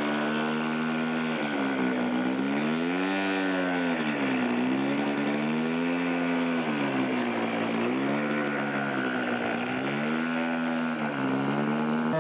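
Engine of a radio-controlled scale aerobatic model airplane running in flight, its pitch rising and falling in slow, smooth waves about every two seconds as the plane manoeuvres.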